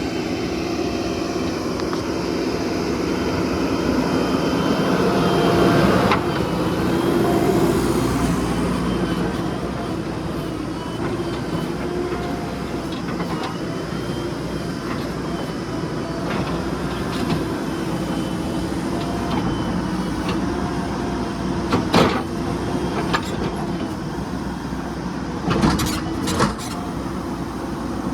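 Heavy diesel machinery engine running steadily. It revs up for a few seconds around five seconds in, and there are several sharp knocks near the end.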